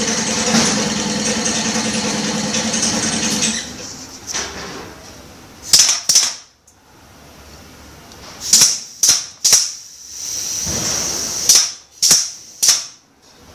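Air-powered drill on a pneumatic auto-feed rig running steadily with a high hiss of air, then stopping about three and a half seconds in. After that come about seven short, sharp bursts of hissing air, the valve and feed cylinders exhausting as they switch.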